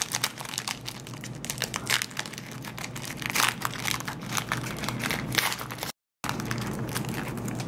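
A foil trading-card pack wrapper crinkling as it is torn open by hand, a dense run of sharp crackles. The sound cuts out completely for a moment just after halfway.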